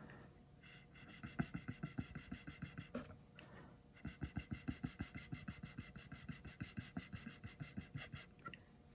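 Small battery-powered handheld mini blower puffing air onto wet acrylic paint in rapid pulses, about five a second. It runs in two bursts with a short break about three seconds in.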